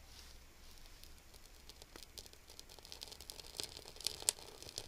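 Wood kindling and thin splints catching fire in a firebox, crackling faintly with scattered sharp pops that come thicker near the end, along with light rustling as the splints are handled.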